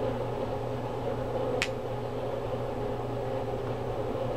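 Steady room hum, like a fan or air conditioner, with a single short tick about a second and a half in.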